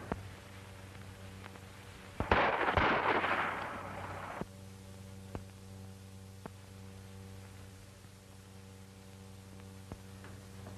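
A single sharp bang about two seconds in, followed by a loud rushing noise for about two seconds that then fades. A few faint clicks come later, over the steady hum of an old film soundtrack.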